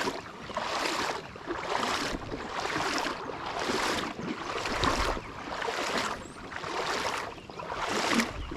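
Someone wading through a shallow river, the water splashing with each step at a steady pace of about one step a second.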